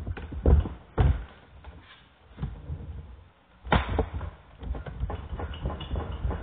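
A few dull thumps and knocks, about half a second, one second and nearly four seconds in, with rustling and light clattering between them.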